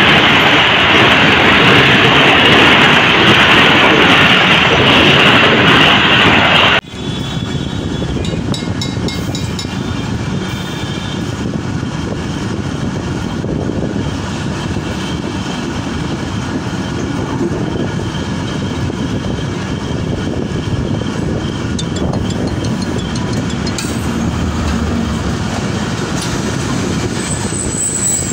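Loud rushing noise of a passenger train passing at speed, cut off suddenly about seven seconds in. Then a Pakistan Railways passenger train's coaches roll by with a steady rumble of wheels on rails and faint high squeals and clicks.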